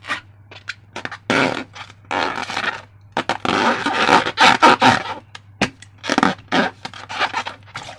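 Slime being squished and worked by hand: irregular wet squelches and crackles in quick, uneven bursts.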